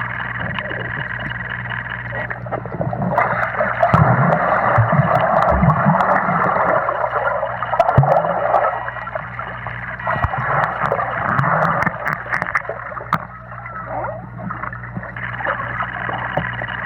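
Water bubbling and gurgling heard underwater, busiest from about three to twelve seconds in, over a steady low hum.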